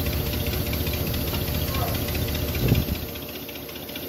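An engine running with a steady low rumble, most likely the machine hoisting the engine. A short clunk comes near the three-second mark, and the rumble then drops in level.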